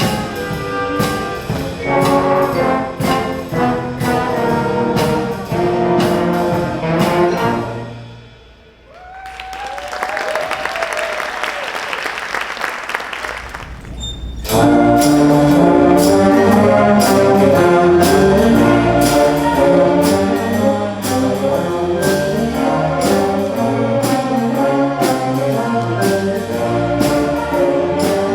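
A student jazz band with trumpets and trombones plays the last bars of a swing tune and stops. Audience applause follows for about five seconds. Then, about fourteen seconds in, the band comes in loudly with the brass on the next piece.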